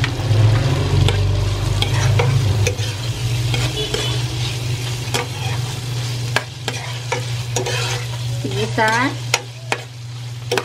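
Diced tofu sizzling as it fries in margarine with garlic and onion in an enamel pot, while a spatula stirs it and scrapes and taps against the pot's sides and bottom. A steady low hum runs underneath.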